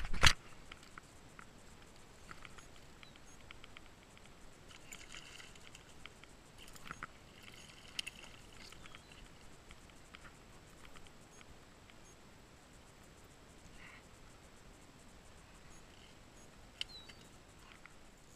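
Small splashes and faint scattered ticks as a hooked striped bass is played and reeled up beside a kayak, after a sharp knock right at the start.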